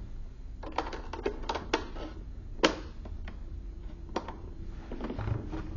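Irregular light plastic clicks and taps as a filter cover is handled and fitted back onto the side of a portable oxygen concentrator's plastic housing, with one louder click about halfway through.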